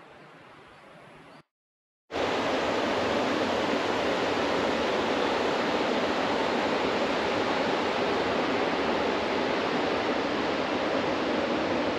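A loud, steady rushing noise with no rhythm or tone, starting abruptly about two seconds in after a moment of silence.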